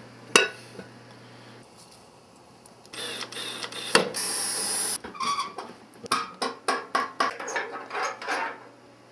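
Hands-on work sounds from the parts of a cast iron wood stove. A sharp knock comes first, then a short steady hiss about four seconds in, then a quick, uneven run of clicks and taps.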